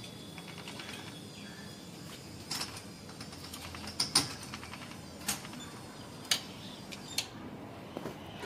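Scattered sharp clicks and creaks from the steel frame and gearing of a battery-powered coconut tree-climbing machine clamped on a palm trunk, over a faint steady low hum.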